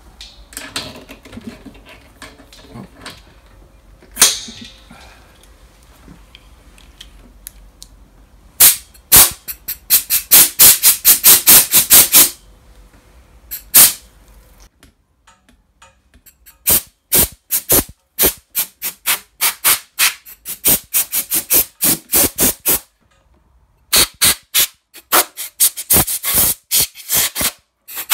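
Compressed air hissing from a pistol-grip air blow gun on a coiled air hose, fired in many short trigger blips in quick succession from about a third of the way in, with two brief pauses. A single sharp hiss sounds about four seconds in.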